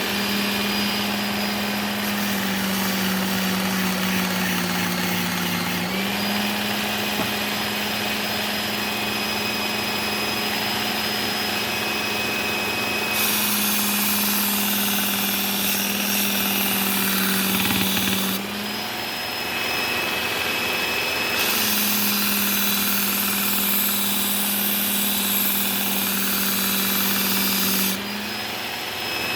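Work Sharp Ken Onion belt knife sharpener running with a steady motor hum whose pitch shifts a few times. Twice, for several seconds each, a brighter hiss joins it as a blade is ground on the abrasive belt.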